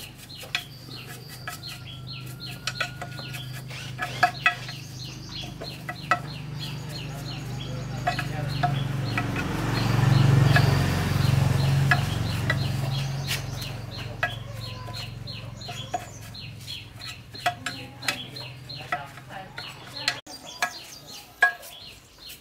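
Light metal clinks of hand tools and parts, with chickens clucking. A low steady hum swells to its loudest about ten seconds in and then fades away.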